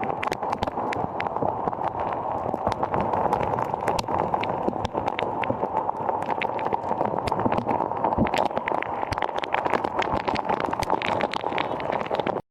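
Heavy rain and splashing water: a dense patter of close drops striking a surface over a steady rush of water.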